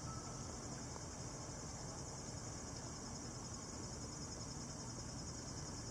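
Faint, steady, high-pitched insect chorus that holds unchanged throughout.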